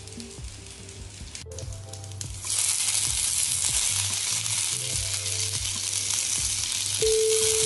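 Gnocchi frying in butter and oil in a stainless steel pan, the sizzle turning suddenly louder about two and a half seconds in as sage leaves go into the hot butter, then holding steady.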